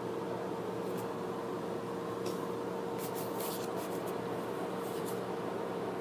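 Steady mechanical hum, like a fan or air conditioner. Over it come faint crinkles and light scrapes as a sticker sheet and a thin metal heart-shaped tin lid are handled, clustered about three to three and a half seconds in.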